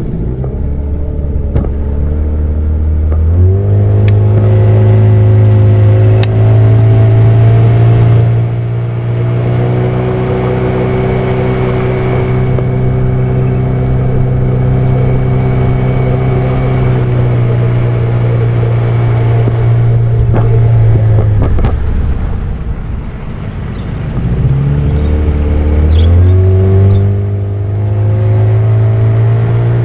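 Small boat's outboard motor running under way. The throttle is opened about three and a half seconds in and held steady, eased back about two-thirds of the way through, then opened up again near the end.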